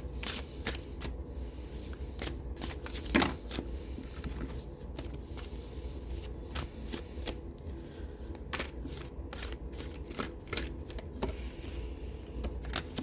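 Tarot cards being shuffled and handled: a run of short, irregular card flicks and taps, with one louder tap about three seconds in.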